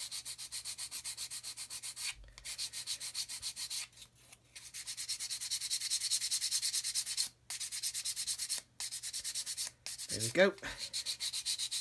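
A small piece of styrene plastic sanded on a hard sanding stick, in quick back-and-forth strokes, several a second. The strokes come in runs with a few short breaks.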